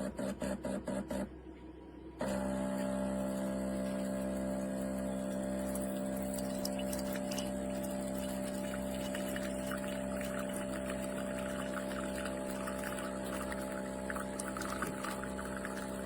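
Espresso machine pump pulsing rapidly, about six times a second, then stopping about a second in. After a brief pause it runs with a steady hum, and a spluttering trickle of liquid builds from about halfway.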